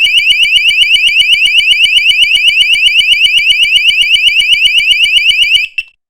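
Motion-sensor security alarm's electronic siren sounding loudly: a fast rising warble repeated several times a second. It cuts off suddenly near the end.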